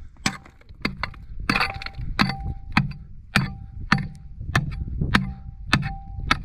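A small steel pickaxe with a wooden handle strikes a rock boulder over and over, chipping into it, about eleven sharp blows evenly spaced a little over half a second apart. Many of the blows leave a brief metallic ring.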